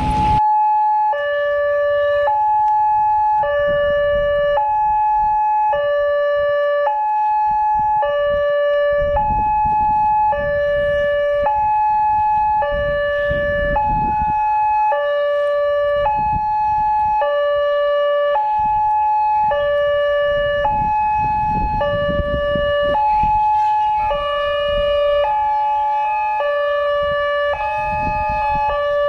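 Railway level-crossing warning alarm: an electronic two-tone signal alternating steadily between a high and a low note. It sounds while the crossing lamp shows red and the barrier is down, warning of an approaching train.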